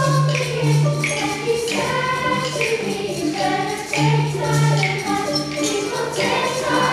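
Children's choir singing a song, accompanied by mallet percussion on school xylophones and a steady low bass line.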